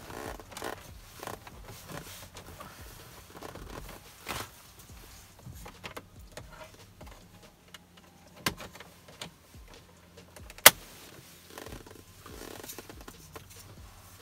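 Plastic centre-console trim being handled and clipped back into place: scattered rustles and small clicks, with a sharp snap about eight and a half seconds in and a louder one about two seconds later.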